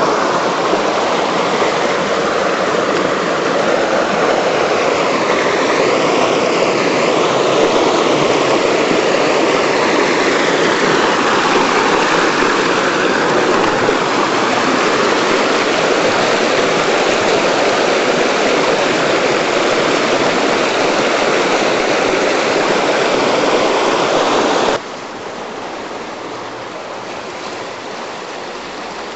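Stream water rushing over stones in a loud, steady rush. About 25 seconds in it cuts suddenly to a quieter, softer flow.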